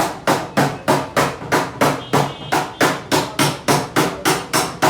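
Rapid, steady hammer blows, about four strikes a second.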